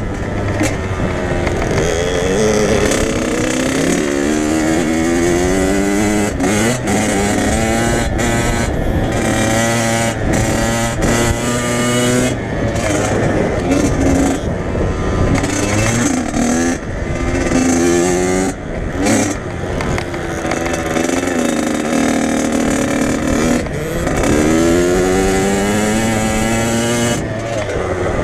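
Dirt bike engine revving hard under riding load, its pitch climbing repeatedly and dropping back as the throttle is rolled off and opened again between jumps and corners, heard up close from the rider's position.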